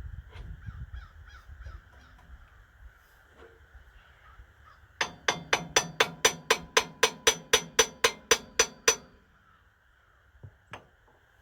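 A hammer striking steel in a quick, even series of about eighteen ringing blows lasting some four seconds, knocking a tractor loader's hydraulic cylinder parts into place. Quieter clanks of handling come before the blows.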